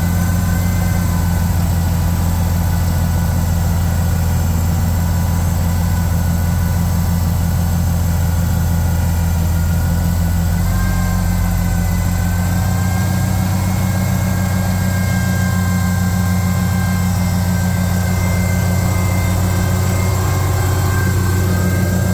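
Oliver 1650 tractor engine running steadily at a low speed, with a slight step up in pitch about ten seconds in.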